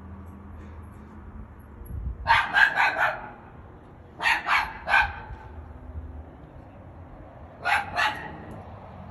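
A dog barking in three short runs: about four quick barks, then three, then two near the end.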